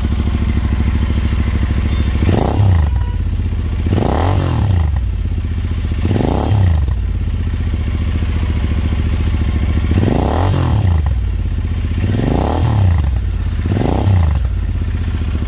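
Royal Enfield Interceptor 650's parallel-twin engine idling through an AEW 201 aftermarket exhaust with its dB killer fitted, blipped six times. Each throttle rev rises and drops back to idle, with a thumpy exhaust note.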